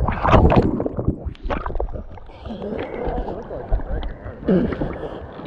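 Ocean wave breaking right over the microphone at the water's surface: a loud rush of splashing, churning water in the first second and a half, then sloshing swell as the microphone dips in and out of the water, with another splash about four and a half seconds in.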